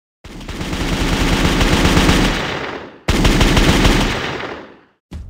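Machine-gun fire sound effect: two long bursts of rapid automatic fire, each fading out over its last second or so.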